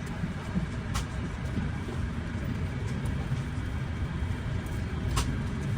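Steady low rumble of an Airbus A350-900 cabin before departure, with two sharp clicks, about a second in and near the end.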